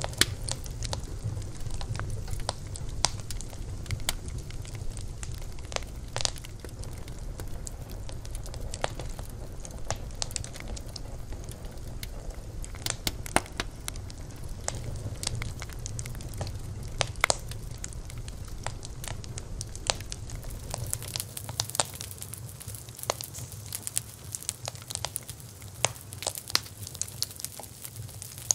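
Wood campfire crackling, with irregular sharp pops and snaps over a steady low rumble of the flames. About three-quarters of the way through, a brighter hiss comes in and the deepest rumble drops away.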